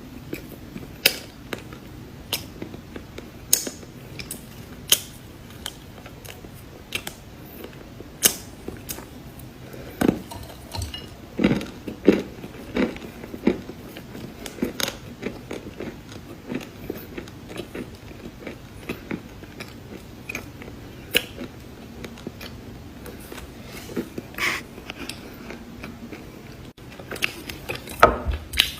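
Someone biting and chewing crunchy cookies: irregular sharp crunches and crackles throughout, with a few louder bites.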